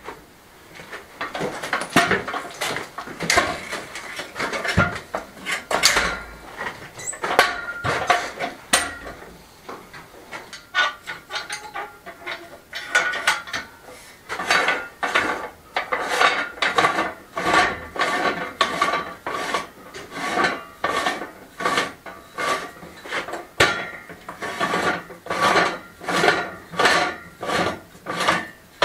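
Steel acrow props being handled and set up: irregular metal clanks and rattles of the tubes. From about halfway there is a regular ringing clink, about one and a half a second, as the prop's threaded collar is wound up to tighten it.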